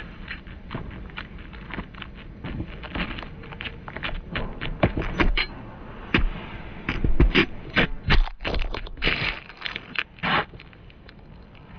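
Soccer ball tapped and rolled between sneakers on asphalt, with shoe soles scuffing on the pavement: a run of quick, irregular taps and knocks that grows busier partway through, and a few longer scrapes near the end.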